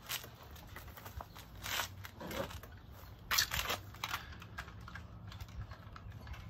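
Clothes rustling, with light clicks and clinks, as a man tucks in his shirt and adjusts his jeans and belt. A few brief rustles are spread through, the loudest a little over three seconds in, over a steady low background hum.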